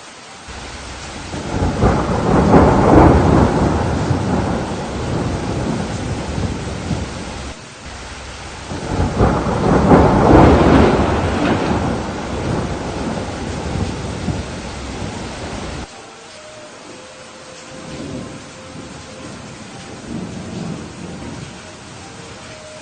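Thunderstorm: steady rain with two long rolls of thunder, the first building about a second and a half in and the second about nine seconds in, each slowly rumbling away. A little past the middle the sound drops suddenly to quieter rain with a couple of faint distant rumbles.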